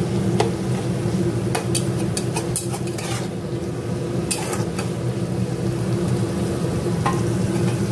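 Metal spatula stirring and scraping water lily stems and peanuts frying in oil in a kadai, with light sizzling and a few sharp scrapes and knocks against the pan, over a steady low hum.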